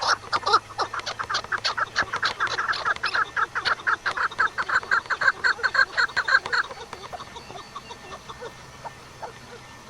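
A bird calling in a fast run of short, harsh, repeated notes, about five a second, that breaks off about two-thirds of the way through, leaving only faint scattered calls.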